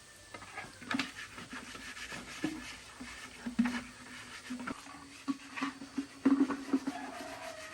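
Chickens calling with low, drawn-out sounds, amid rustling and scattered sharp knocks and clicks.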